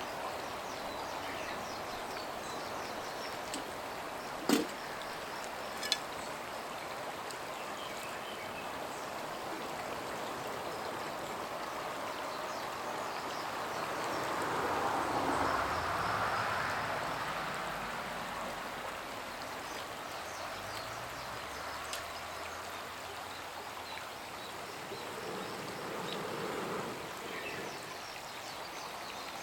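Steady rush of flowing water, with two sharp clicks about four and a half and six seconds in, and a swell in the noise around the middle.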